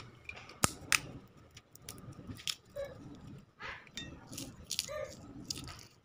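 Peanuts in the shell being picked from a plate and cracked open by hand: two sharp cracks under a second in, then lighter cracks and shell rustles.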